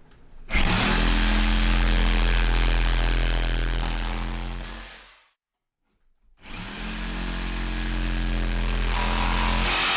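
Corded reciprocating saw (Sawzall) running in two long runs with about a second's stop between, the motor winding down at the end of the first run. It is cutting through the nails that hold an electrical box to a wall stud.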